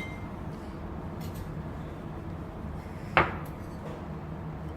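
A utensil clinks once against a pot about three seconds in, ringing briefly, over a faint steady low hum.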